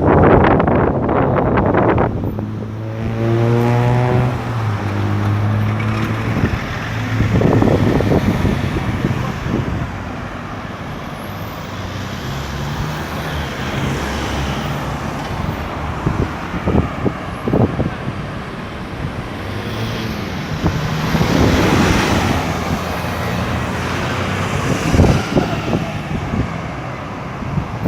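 Road traffic at a busy roundabout: cars and trucks driving past, with engines revving up and changing pitch as vehicles pull away. Wind buffets the microphone in the first couple of seconds.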